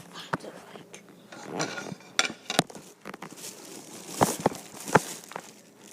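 Scattered clicks and knocks of kitchen things being handled, like dishes and utensils being moved, with two sharper knocks near the end.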